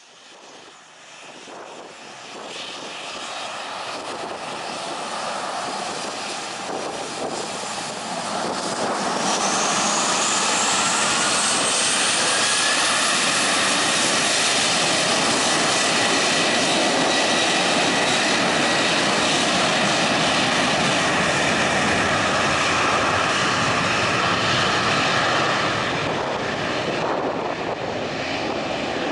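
Jet aircraft engines growing louder over about ten seconds, a whine rising in pitch as they build, then running loud and steady before easing off slightly near the end.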